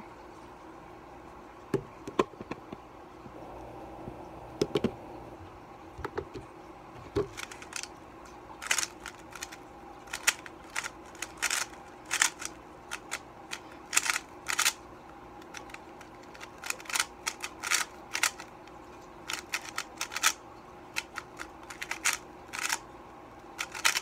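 Plastic speedcube being turned fast by hand: rapid clicking and clacking of its layers. The clicks come singly for the first several seconds, then in quick runs of turns from about eight seconds in.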